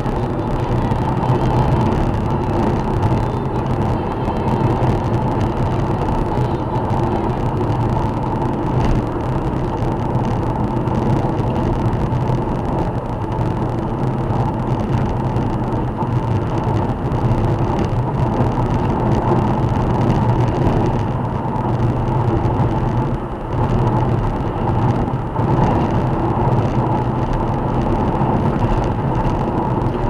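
Car cruising at about 110 km/h on a highway, heard from inside the cabin: a steady drone of tyre and road noise mixed with engine and wind.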